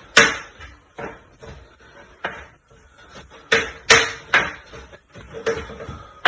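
A kitchen knife chopping bitter leaf on a cutting board: sharp, uneven chops, some coming in quick pairs, with a short pause in the middle.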